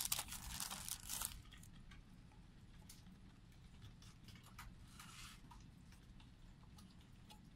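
Rustling and scraping of a compact disc being slid out of its card packaging by hand, for about the first second and a half, then only faint handling noise.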